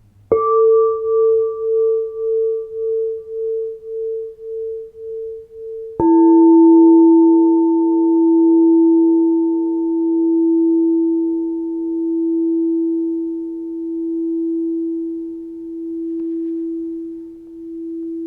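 Crystal singing bowls struck and left ringing: the first gives a clear tone that pulses about twice a second, and about six seconds in a second, lower bowl is struck and rings on, louder, with a slow waver.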